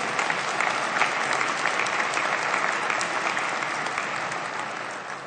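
Members of parliament applauding together, a dense steady clapping that tapers off near the end.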